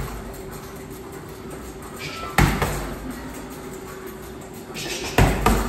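Strikes landing on an Everlast heavy bag: one heavy thud about two and a half seconds in, then two more in quick succession near the end, over steady gym background noise.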